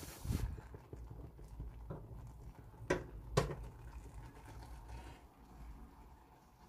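Two light knocks about half a second apart near the middle, over a steady low rumble from a hand-held phone camera being moved.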